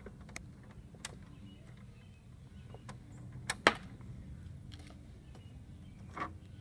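Handling noise from an RC truck's plastic body and its packaging: scattered light clicks, with one sharp snap about three and a half seconds in.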